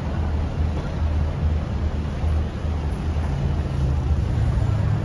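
Car driving slowly over cobblestones, heard from inside the car: a steady engine and tyre rumble that swells and dips unevenly.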